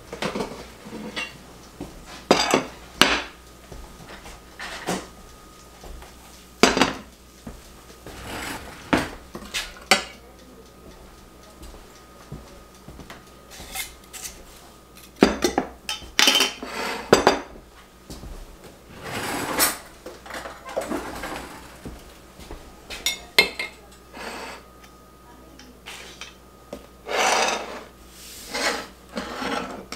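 Kitchen clatter: a metal spoon clinking and scraping in a cast iron skillet, with dishes and a glass jar knocked and set down on a wooden tabletop, in irregular clinks and knocks.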